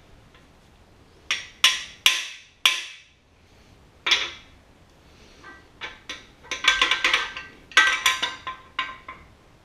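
Hammer taps on the driver bar of a cam bearing installer, sharp metal-on-metal knocks with a short ring, driving a cam bearing the last few thousandths of an inch into a Ford FE V8 block. Single taps come a second or so apart at first, then quicker runs of taps near the end as the bearing seats.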